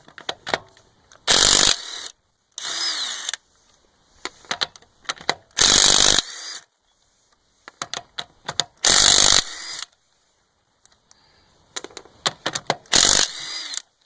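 Craftsman C3 19.2-volt half-inch cordless impact wrench hammering lug nuts off a car wheel, in about six short bursts of a second or less with small clicks and rattles between them. It takes the nuts off with no problem.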